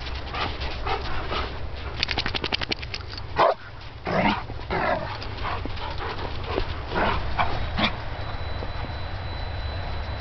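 An English springer spaniel and an Old English sheepdog play-fighting: short barks and yips come in irregular bursts, with a quick run of rapid pulses about two seconds in and the loudest calls a little after. The calls thin out in the last couple of seconds, leaving a steady low rumble.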